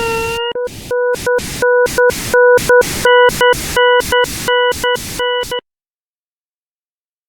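Computer-generated sound from a graph sonification: a steady buzzy synthesized tone, interrupted many times by short bursts of white-noise hiss in a quick, uneven rhythm. It cuts off abruptly about five and a half seconds in, leaving dead silence.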